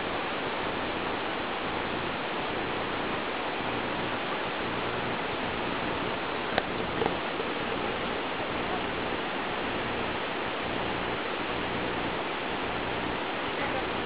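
Steady rushing noise, with two faint sharp clicks a moment apart about halfway through.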